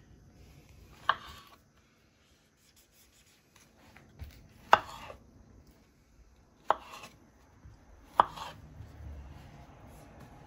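Kitchen knife slicing through small peach tomatoes and hitting the cutting board: four sharp knocks, spaced unevenly a couple of seconds apart.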